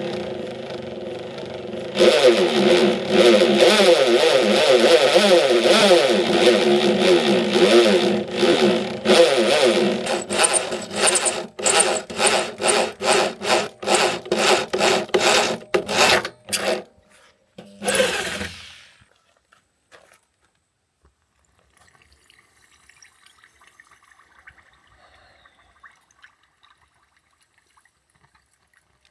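A power tool running and grinding steel for several seconds, its pitch wavering under load. It gives way to a run of short scraping strokes about two a second, with one last burst before it falls nearly quiet.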